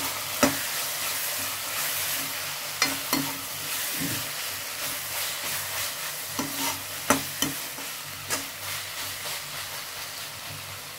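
Tomatoes, green peas and onions frying in oil in a metal kadhai with a steady sizzle, while a perforated metal spatula stirs and scrapes through them, knocking sharply against the pan every second or two.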